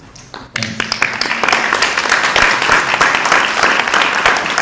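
Audience applauding: the clapping of many hands breaks out about half a second in and goes on steadily.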